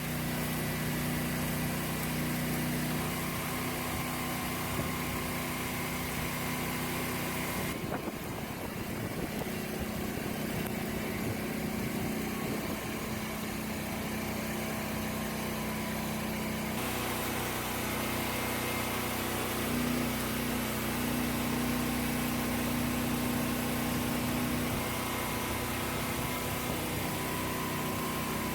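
Engine-driven welding machine running steadily, its tone shifting abruptly twice, with a steady hiss over it.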